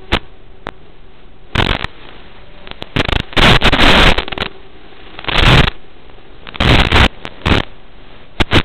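Steady hiss from an analog FPV video receiver, broken several times by loud bursts of crackling static, the longest about three to four and a half seconds in, as the video signal breaks up.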